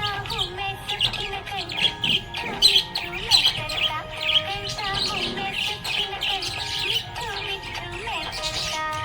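Budgerigars chirping and warbling continuously in rapid, overlapping calls, with music under them.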